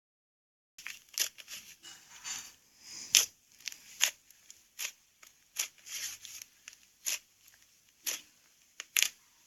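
Slime being squeezed and kneaded by hand, with sharp crackling pops roughly once a second and softer crackles in between, starting about a second in.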